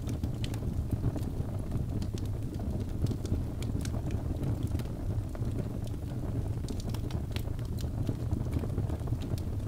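Birch logs burning in a fireplace: irregular sharp crackles and pops over a steady low rumble of the flames.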